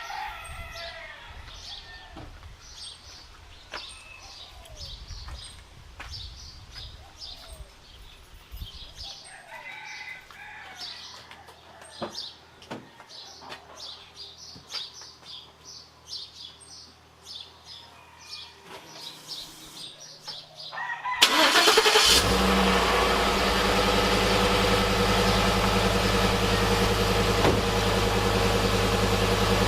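Birds chirping with scattered clicks and knocks. About two-thirds of the way through, a truck engine starts and settles into a steady idle, much louder than the birds.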